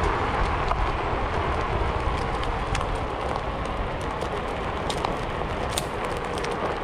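Wind noise on the microphone during a Onewheel Pint ride: a steady low rumble and hiss, with scattered small clicks throughout.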